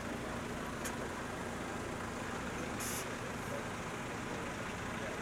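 Scania truck's diesel engine running steadily as the cab-chassis rolls slowly past, with a short hiss of air about three seconds in.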